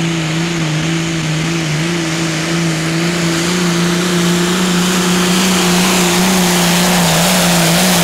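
Competition pulling tractor's engine running flat out at steady, high revs while dragging a weight-transfer sled, its pitch held nearly constant, over the noise of rear tyres spinning and throwing dirt.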